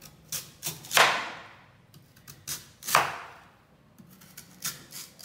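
Kitchen knife slicing through raw lotus root onto a bamboo cutting board: two crisp cuts about two seconds apart, each ending in a crunch and a knock on the board, with light taps of the blade between them.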